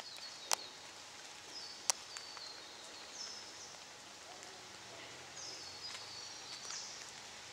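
Faint bird calls: short high whistled notes, several stepping down in pitch, repeating every second or two. Two sharp clicks sound in the first two seconds.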